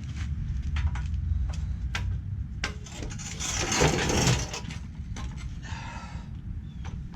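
Handling noise from removing a scooter's front wheel: scattered light knocks and clicks over a low rumble, with a rubbing scrape lasting about a second midway.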